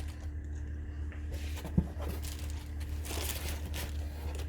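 Plastic-wrapped chipboard sheets being handled, with soft crinkling and rustling and one sharp tap a little under two seconds in, over a steady low hum.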